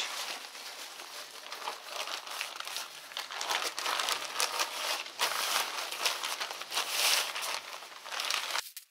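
Yellow plastic sack crinkling and rustling as it is handled and lifted off crushed frozen bitumen, with fine crackles. It stops abruptly near the end.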